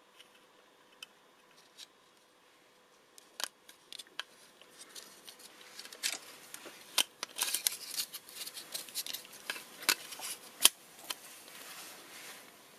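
Small plastic parts of a 1:24 scale model car being handled and pressed together. A few light clicks at first, then a busier run of clicks and scraping from about halfway through.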